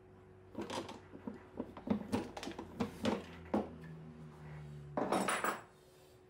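Metal clicks and clunks as the iron crank handle of an antique beam drill is worked loose and pulled off its shaft. A short scraping rustle follows near the end.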